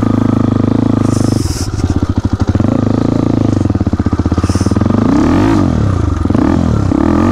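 Motorcycle engine pulling at low speed, its firing pulses choppy for a while, then revved up and down several times in quick succession near the end.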